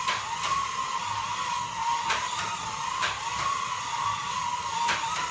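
Slot cars' small electric motors whining, the pitch wavering up and down as the cars speed up and slow down around the track, with scattered sharp clicks.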